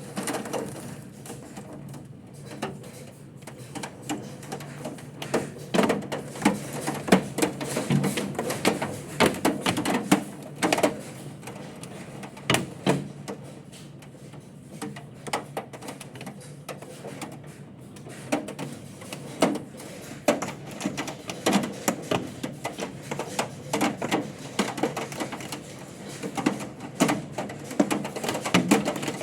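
Hail falling with rain: many irregular, sharp clattering hits of hailstones over a steady hiss of rain. The hits come thickest in the first half and again near the end.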